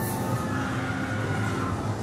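Haunted-house ambient soundtrack: a steady low rumbling drone with a few faint held tones above it.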